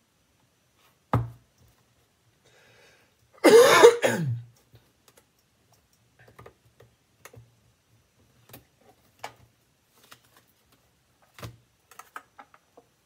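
Light scattered clicks and taps of tarot cards being handled and the deck tapped on the table, with one sharper click about a second in. Around three and a half seconds in, a person clears their throat once.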